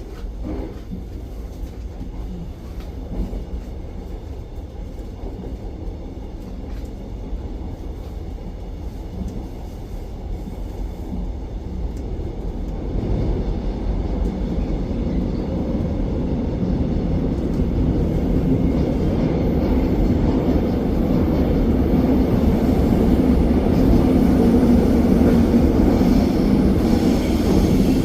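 Interior running noise of a Korail Suin–Bundang Line electric multiple unit: a steady rumble of wheels on rail, growing louder from about halfway through as the train enters a tunnel and picks up speed, with a faint steady hum.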